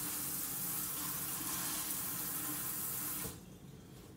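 Kitchen sink tap running in a steady stream as something is rinsed under it, shut off about three seconds in.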